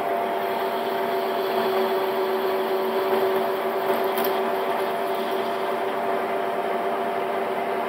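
DIP-300 lathe running, driven by a 2.2 kW 220 V DC brushed motor on rectified mains, with a steady hum and whine from the motor and drive while the tool takes a cut in the spinning workpiece.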